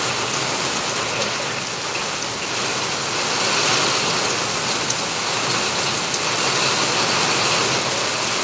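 Heavy rain falling steadily on wet paving and parked vehicles: an even hiss with scattered faint ticks of individual drops.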